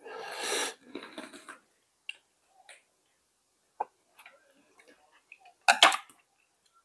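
Light clicks and knocks of kitchen work with utensils. It opens with a short rustle and ends with a louder clatter about six seconds in.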